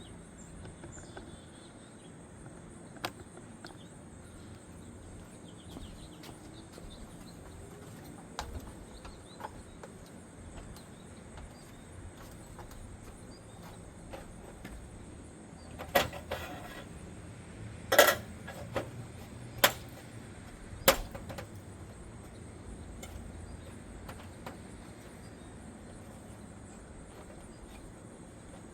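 A steady high insect buzz, with a few small clicks and, past the middle, a cluster of five sharp knocks a second or so apart from tools worked against the gutter.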